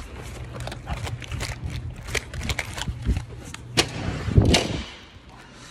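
Irregular knocks, clicks and rubbing from a phone's microphone being jostled against clothing as it is carried while walking, with a louder thump about four and a half seconds in.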